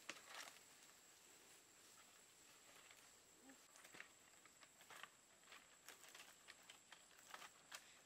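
Faint, scattered light rustles and clicks of palm fronds and a climber moving in a coconut palm, over a quiet background with a steady thin high-pitched tone.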